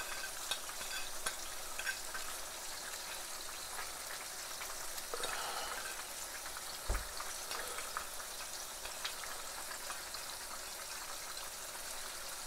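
Curry simmering in pans on a gas stove: a steady sizzling, bubbling hiss with scattered small pops, and a soft knock about seven seconds in.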